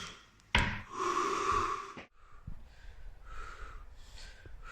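A person's sharp, loud breath about half a second in, followed by a run of quicker, fainter breaths: anxious, panicky breathing.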